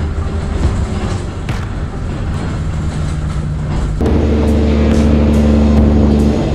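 Semi-truck engine running steadily while driving, heard inside the cab, with background music over it. The sound changes abruptly about four seconds in, to a louder drone with faster regular ticks.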